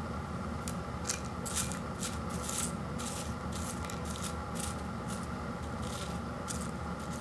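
A series of short rustling, scraping handling sounds, about a dozen over several seconds, over a steady low hum.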